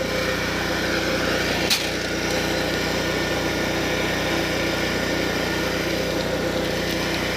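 A small engine running at a steady idle-like hum, with one sharp click about two seconds in.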